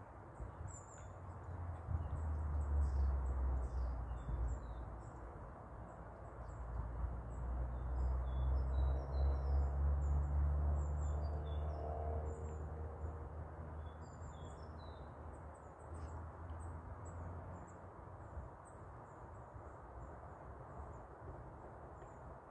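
Small birds chirping and twittering, over a low rumble that swells twice, about two seconds in and again from about seven to twelve seconds.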